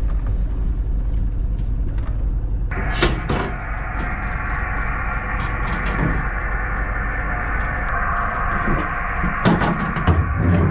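A steady low rumble of the fishing boat's machinery, with several sharp knocks and thuds as wooden deck hatch covers are lifted and set down. The loudest knocks come near the end.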